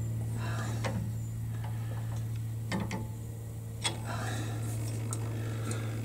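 A few sharp clicks and knocks as a wooden blank is handled and seated into the metal dovetail jaws of a lathe chuck, over a steady low hum.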